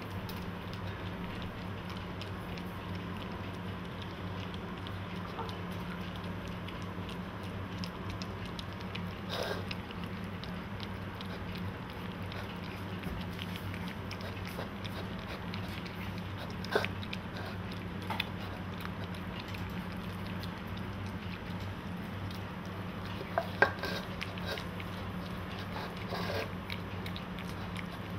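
Golden Retriever puppies eating from a plastic bowl: chewing and lapping, with a handful of short sharp knocks, the loudest about halfway and two-thirds of the way through, over a steady low hum.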